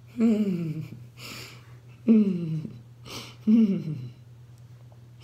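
A woman's voice crying out three times in prayer, each cry short and falling in pitch, with sharp breaths in between. A faint steady hum sits underneath.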